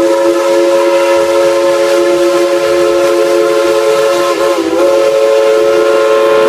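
Steam locomotive's chime whistle blown in one long, loud chord of several notes, wavering briefly about four and a half seconds in.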